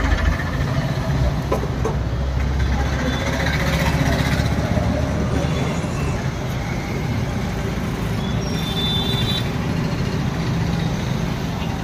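Steady roar of a street food stall: a gas wok burner running under the pan and road traffic around it, with a deep rumble for the first few seconds.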